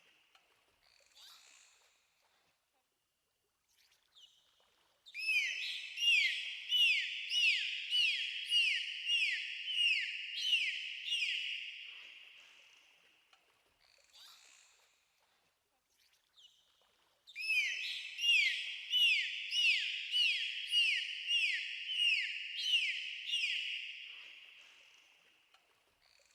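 Dolphin calls: two bouts of rapid, evenly repeated high squeaky notes, about two a second. Each bout starts abruptly and fades away over several seconds.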